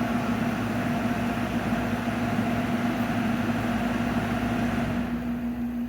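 General Electric thinline window air conditioner running: a steady hum from its GE rotary compressor under the rush of the blower fan. About five seconds in, the fan's rush drops away as the control is set between speeds, leaving the compressor hum.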